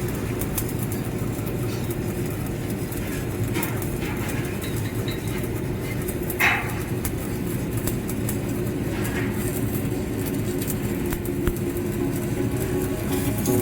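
Stick (arc) welding on steel pipe support: a steady, dense crackle and sizzle from the electrode's arc, with a brief louder pop about halfway through.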